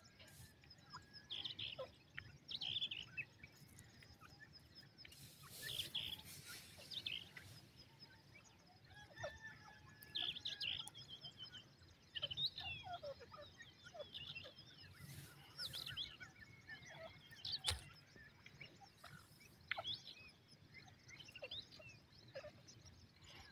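Birds chirping: faint, scattered short calls, some sliding down in pitch, with a couple of brief hissing rushes and a single sharp click about eighteen seconds in.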